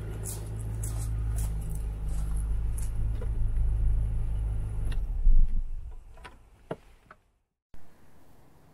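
The petrol Rover V8 engine of a 1995 Range Rover idling steadily, then switched off about five seconds in: a brief loud knock, and the running sound dies away within a second. A few light clicks follow.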